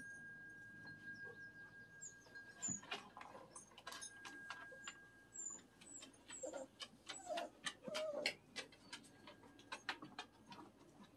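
Faint outdoor background: small birds chirping now and then, with many light clicks and taps that come thicker through the middle, and a few short low squeaks about two-thirds of the way through.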